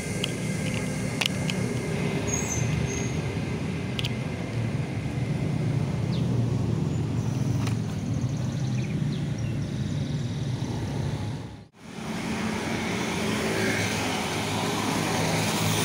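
Steady road traffic noise from cars and motorbikes passing, with a few faint clicks. It cuts out abruptly near the end and then comes back with more hiss from tyres on a wet road.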